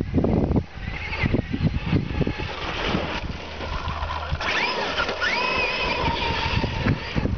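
Brushless electric motor of an RC car whining, its pitch rising and falling several times with the throttle, over knocks and rattling.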